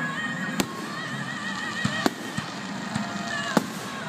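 Aerial firework shells bursting: a string of sharp bangs, roughly one a second, with music playing underneath.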